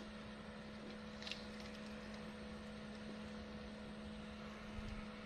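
A steady low hum at a few fixed pitches over a faint even hiss, with one faint click about a second in.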